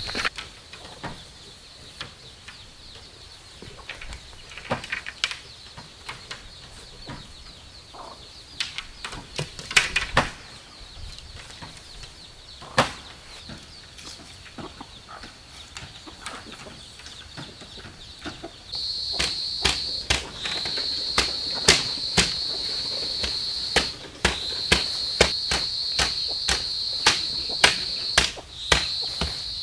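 Bamboo poles knocking and clacking as they are handled and set into a fence. Behind them is a steady high insect drone, which gets much louder about two-thirds of the way in, where the knocks also come thick and fast.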